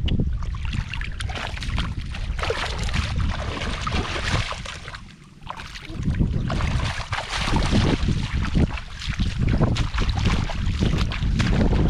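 Shallow floodwater splashing and sloshing as it is worked through by hand, with many short splashes, over wind rumbling on the microphone. It drops away briefly about five seconds in.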